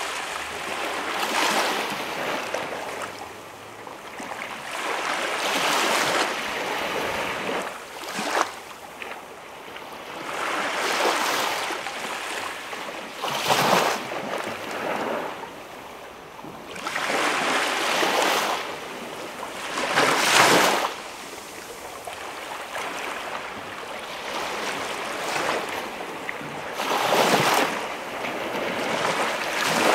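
Waves washing onto a quiet beach, a hiss of water that swells and fades every few seconds, with two sharper, louder surges about halfway through.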